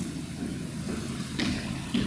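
Steady low rumble of a large hall's room noise, with two short knocks about a second and a half in and just before the end.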